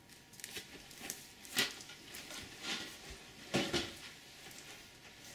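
Cardboard model-kit boxes being handled and set down on a wooden table: a run of irregular knocks and scrapes, the loudest about one and a half and three and a half seconds in.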